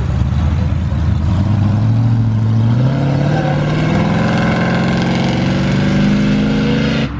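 Square-body pickup truck's engine accelerating away, its pitch climbing steadily from about a second and a half in. The sound cuts off suddenly near the end.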